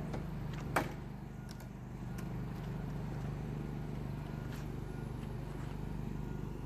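Sharp metallic clack from the trailer's rear door latch about a second in, followed by a few lighter clicks, over a steady low engine hum.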